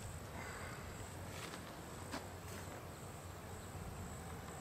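Steady high-pitched chirring of insects, crickets or similar, with a few faint clicks and rustles from handling a retrieved arrow and stepping on dry ground.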